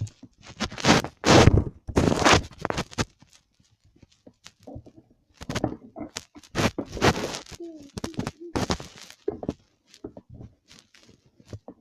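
Clear-glue slime being squeezed and stretched by hand, giving irregular crackling pops of trapped air, loudest in the first few seconds and after about five seconds in.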